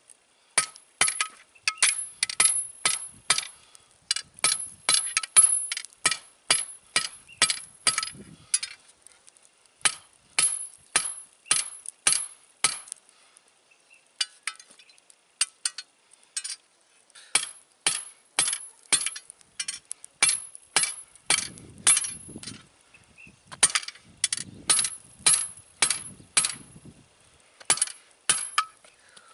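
Hand hammer striking hot rebar on a small improvised anvil during forging: sharp, ringing metallic clinks at about two to three blows a second, in runs broken by short pauses.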